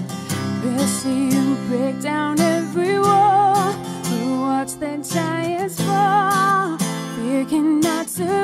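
A woman singing a slow worship song over her own strummed acoustic guitar, holding some notes with vibrato.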